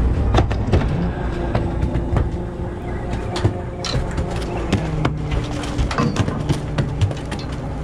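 Fishing boat's engine running with a steady low rumble, under frequent sharp knocks and clatter from hauling the longline and handling halibut on deck.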